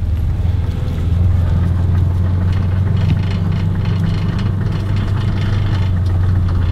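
Engine of a side-by-side utility vehicle running steadily at walking pace, a constant low drone.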